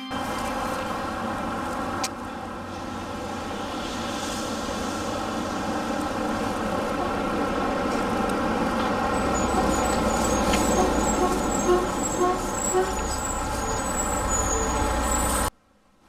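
Road traffic noise with a heavy vehicle engine running, a low rumble building over the last several seconds, then cutting off suddenly near the end.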